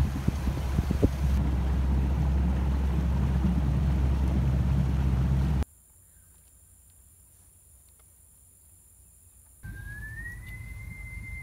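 Boat motor running steadily with wind buffeting the microphone, cutting off suddenly about halfway through. After a few seconds of faint quiet, a thin high whistle rises and then holds steady near the end.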